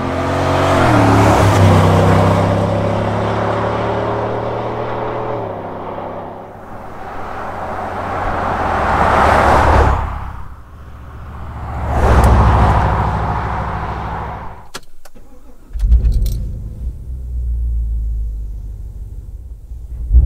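A GMC/Chevy 1500's 6.2L V8 through an MPI Bullnoze stainless cat-back exhaust, accelerating with rising revs and then passing by several times, each pass swelling and fading. Near the end, after a couple of sharp clicks, comes a steady low exhaust rumble.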